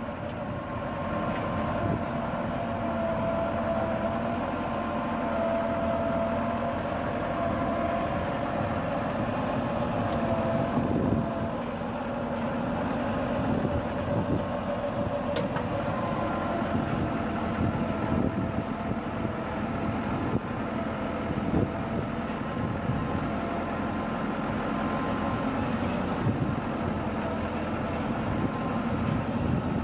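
Massey Ferguson 385 tractor's four-cylinder diesel engine running steadily while it powers a rear-mounted backhoe digging and loading sand, with a thin steady whine over the engine sound.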